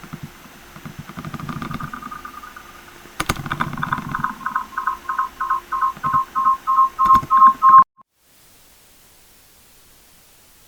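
Alarm-like electronic beeping from a faulty microphone: a rapid pulsing two-pitch tone, about four beeps a second, growing louder, then cutting off suddenly; faint hiss follows.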